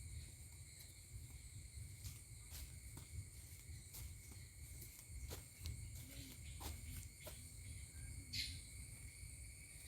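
Steady insect chorus: an even, shrill drone in several high pitches, over a low rumble, with scattered faint ticks and a short brighter call about eight seconds in.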